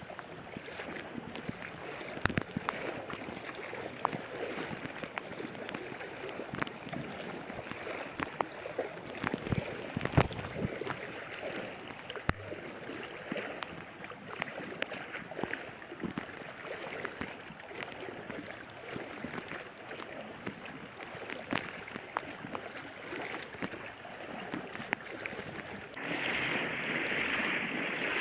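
Floodwater rushing steadily, with scattered clicks and knocks; near the end the rush gets louder and hissier.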